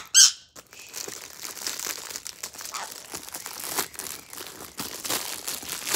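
Clear plastic packaging bag crinkling and rustling as it is handled and opened to free a silicone pop-it fidget toy, a continuous scratchy crackle. A brief loud high-pitched sound right at the start.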